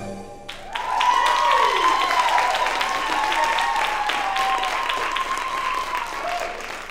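Audience applause with cheering breaking out about half a second in, just after the belly-dance music ends: many hands clapping with high voices calling out over it, slowly getting quieter toward the end.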